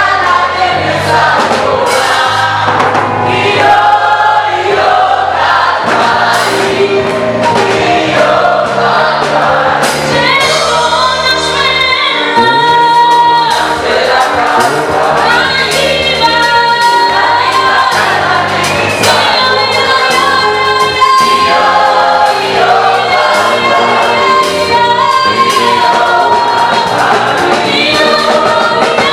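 A choir singing an African gospel song in harmony over a band with bass and a steady beat.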